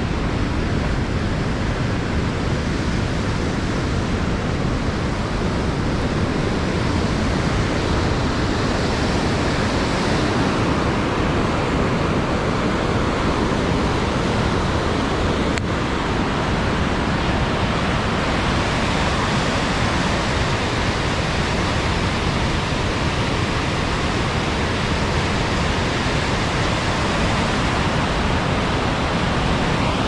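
Overlander Falls on the Fraser River: a large volume of whitewater pouring over the falls and churning through the rapids below, a steady, loud rush of water.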